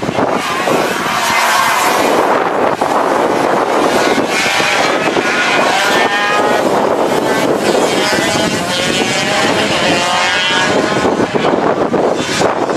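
Engines of several gearbox racing karts revving hard as they race past, their pitch repeatedly rising and falling as they accelerate and change gear.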